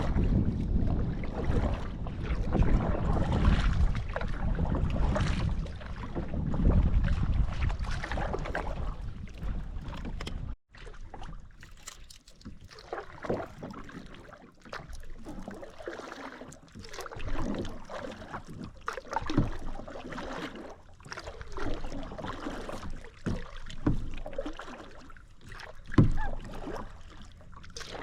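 Kayak on a lake: water and paddle sounds around the hull. A loud, low rumbling noise for the first ten seconds or so, then after a sudden break a quieter stretch of scattered splashes and knocks.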